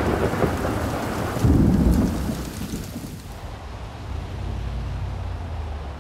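Thunder rumbling over rain, with a louder roll about one and a half seconds in, then fading to a low rumble.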